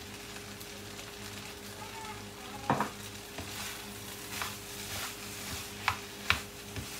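Fried rice sizzling in a frying pan as a spatula stirs and scrapes through it. A few sharp clacks of the spatula against the pan stand out: the loudest is almost three seconds in, and two more come close together near the end.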